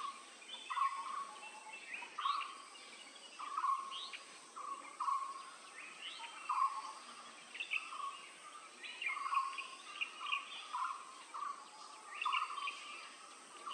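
Blue-throated barbet calling: a low note, often doubled, repeated about every second and a half, with higher chirps over it.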